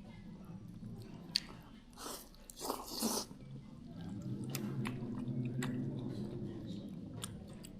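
A person eating a bowl of hand-pulled noodles: chewing and eating noises with a few sharp clicks, and a louder noisy burst about two to three seconds in.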